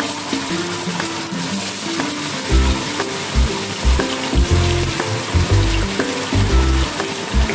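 Marinated pork chops sizzling steadily in hot oil in a stainless steel pan over high heat, as more chops are laid in. Background music with a low beat comes in about two and a half seconds in.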